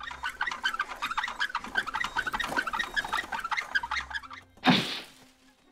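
Birds chirping rapidly, many short chirps overlapping. About four and a half seconds in, a single loud, sudden rush of noise cuts across them, and it is quiet after it.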